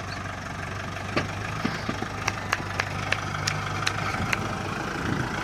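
Kubota MU4501 tractor's four-cylinder diesel engine running steadily at low speed while pulling a heavily loaded seed drill, with scattered sharp ticks over the engine sound.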